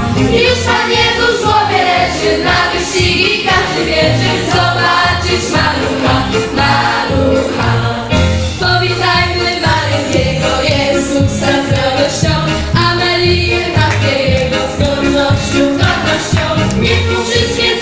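Children's choir singing a Polish Christmas carol (kolęda) with instrumental accompaniment and a steady beat.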